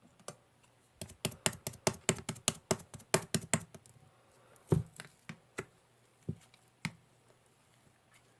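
Quick clicking: a fast run of small sharp clicks lasting about three seconds, then a few single clicks spaced out.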